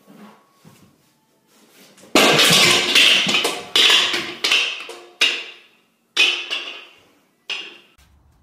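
A series of loud crashes: six or so sudden hits spread over about six seconds, each ringing out and fading before the next.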